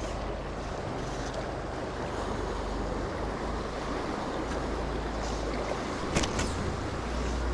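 River water rushing over a shallow, stony run, a steady noise, with a low rumble of wind on the microphone. A brief sharp sound about six seconds in.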